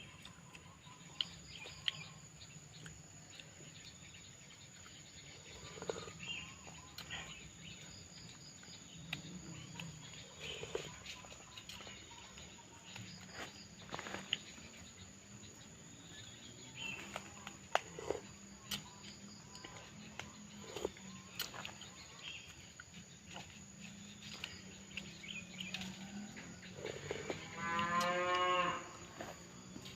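Eating sounds from a bowl of spicy seblak: scattered clicks of a spoon against the bowl, with chewing and slurping. Near the end a farm animal calls once, a wavering call about a second and a half long and louder than the eating.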